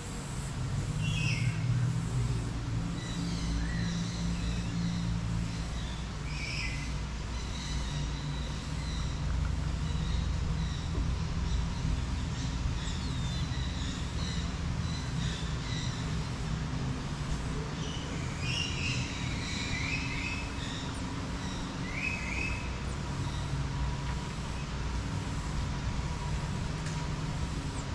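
Steady low rumble of background noise, with short high-pitched animal chirps scattered over it, several of them close together about two-thirds of the way through.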